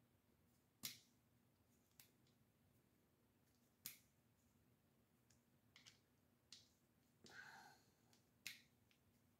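About six faint, sharp clicks at irregular intervals from a small L-shaped hex key working the ring screws of an Aero Precision scope mount, which are loosened and tightened in turn to break in the threads. A brief faint tone comes about seven seconds in.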